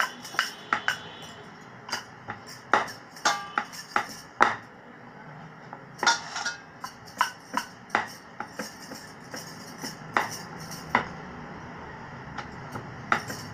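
Rolling pin clicking and knocking irregularly against the rolling board as a stuffed potato paratha is rolled out, in clusters with short pauses between.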